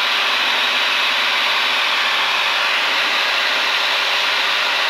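Steady cockpit noise of a Cirrus single-engine piston airplane in flight: engine and propeller drone mixed with rushing airflow, on descent during the final approach to landing.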